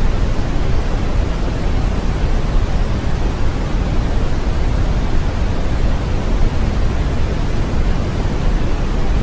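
Brown noise: a steady, even rumbling hiss, heaviest in the bass and dying away towards the treble, with no change in it.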